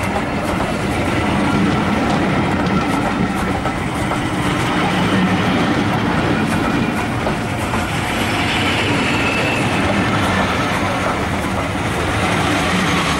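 Passenger coaches rolling past close by, their wheels rumbling and clattering steadily on the rails. A faint high squeal from the wheels joins in about eight seconds in.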